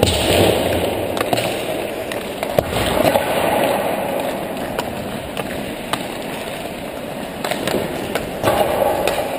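Ice hockey skate blades scraping and carving across the ice, with a few sharp clicks of the stick blade striking the puck.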